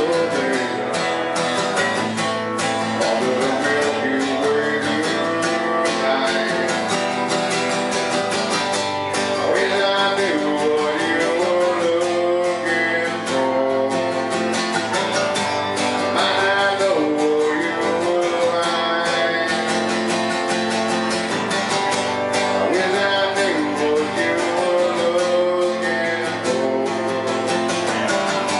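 Acoustic guitar strummed steadily, with a bending melody line carried over it.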